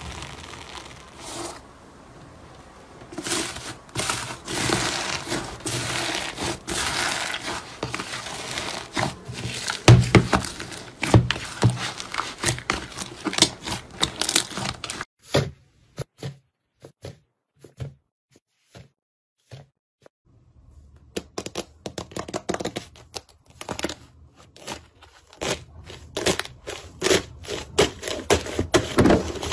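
Hands working slime: foam-bead slime crackling and popping as its crust breaks, soft squishing as slime is kneaded, and dense sharp crackles near the end. About halfway through there is a quiet stretch with only a few faint clicks.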